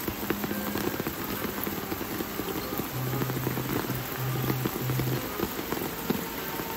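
Steady rain falling, with many individual drops pattering and ticking on nearby surfaces.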